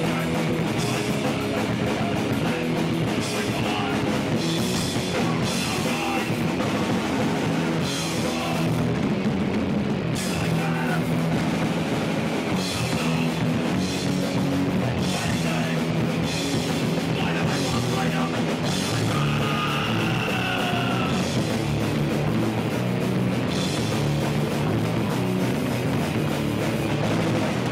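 Hardcore punk band playing live in a small room: distorted electric guitar, bass guitar and a drum kit with crashing cymbals, playing without a break.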